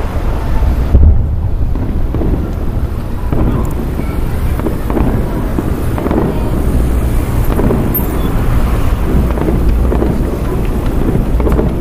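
Fireworks display heard from the crowd: a continuous deep rumble of overlapping booms, with a loud low thump about a second in.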